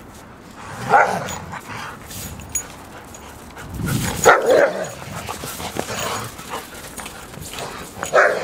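German Shepherd barking in single deep woofs a few seconds apart: one about a second in, one or two around the middle, and one near the end.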